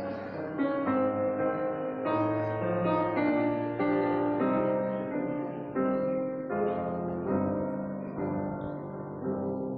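Solo piano playing a slow, quiet piece of held chords, the notes changing about once a second.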